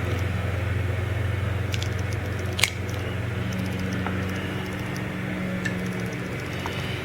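Plastic wiring-harness connectors being handled and pushed together, small clicks with one sharp snap about two and a half seconds in, over a steady low hum.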